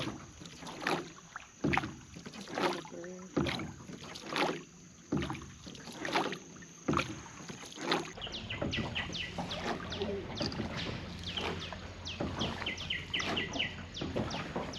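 Oars of a rowed wooden boat dipping and pulling through the water in a steady rhythm, about one stroke a second. About eight seconds in this gives way to many short, high, falling chirps of birds over a steady low hum.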